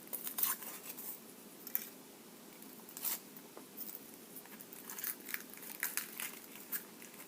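A Kinder Surprise egg being opened by hand: scattered small crackles and snaps of its foil wrapper and chocolate shell.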